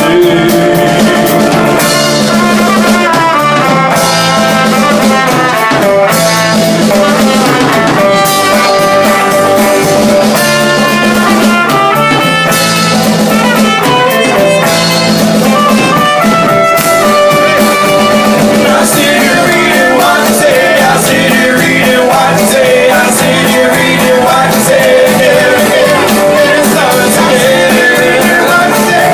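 A small rock band playing live and loud: a strummed acoustic guitar, a second guitar and a drum kit, with a man singing.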